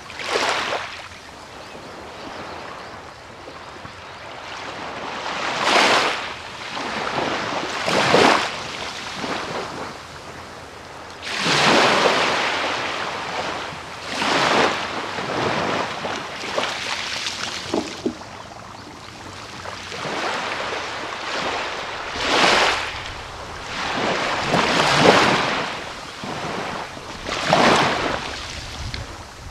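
Small waves breaking and washing up the beach, a rush of surf swelling and fading every two to three seconds.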